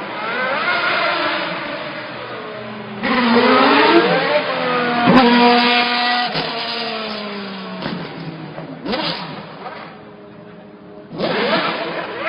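Twelve-cylinder racing-car engine revving in repeated surges, its pitch climbing and falling between them, with a sharp crack about five seconds in.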